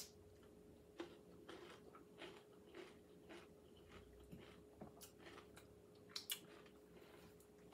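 A person chewing crisp food with faint, irregular crunches, over a faint steady hum.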